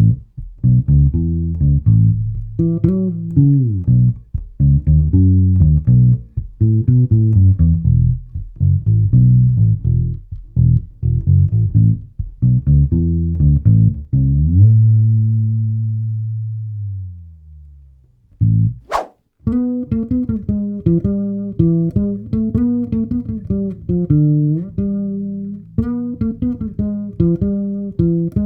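Fretless Tiny Boy Bass mini bass with steel flatwound strings, played through a bass amp: a bass line of plucked notes that slide in pitch, and a long held note about halfway through that slides slowly down. A sharp click follows, then a busier line with a brighter tone.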